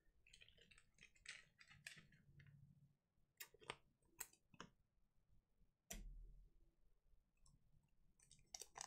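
Near silence, with faint scattered clicks and ticks of trading cards being flipped through by hand, and a soft low thump about six seconds in.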